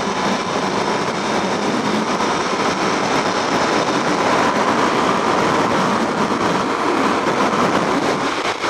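Suzuki DR-Z400SM single-cylinder four-stroke engine running at a steady cruising speed, mixed with wind noise over the helmet-mounted microphone.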